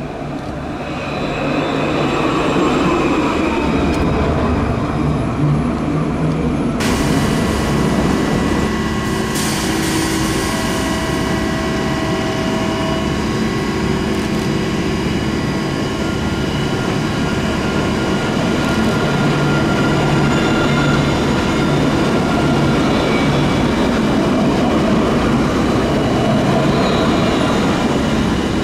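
Alstom Citadis low-floor electric trams running by. The first one approaches and passes; after a sudden cut about seven seconds in, a second one rolls in slowly round a curve. Its rolling rumble carries several steady whining tones from the traction equipment and wheels.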